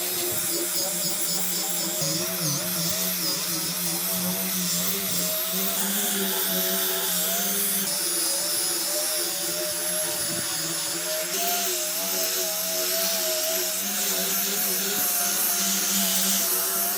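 Handheld electric power tool running steadily on wood, its motor whine wavering slightly in pitch as the load changes.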